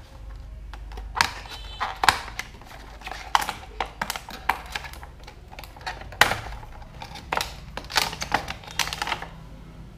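Small plastic toy kitchen pieces being handled: irregular light clicks and rustles, as toy utensils are picked out of their plastic packaging.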